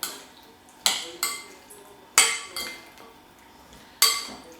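Spoon clinking against a mixing bowl while stirring chicken pieces in marinade: a handful of irregular clinks, each ringing briefly.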